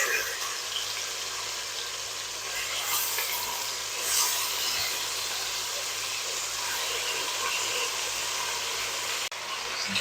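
Chicken wings sizzling steadily in hot sunflower oil and melted sugar in a pot.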